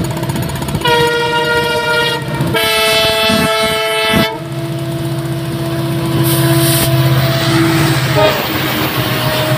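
Twin WDG-4 (EMD GT46MAC) diesel locomotives sound their horn in two blasts, the first about a second long and the second nearly two seconds. After that comes the steady drone of the two-stroke diesel engines as the freight train approaches and passes.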